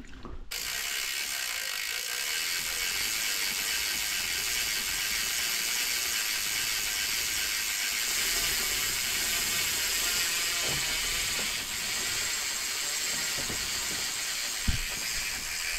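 Bicycle rear freehub clicking in a fast, steady buzz as the cranks are turned backwards, running the chain round once while chain lube is dripped onto it. A single low knock near the end.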